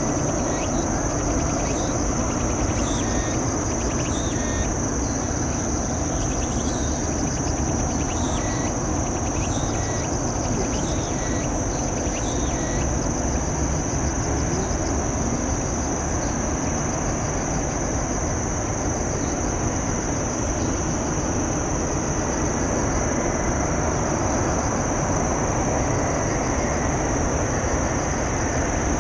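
Steady outdoor ambience: a constant high-pitched insect trill over a steady low rush, with short bird chirps through the first half.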